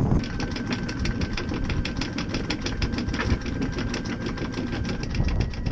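Boat engine running steadily: a low rumble with a rapid, even ticking of about eight a second.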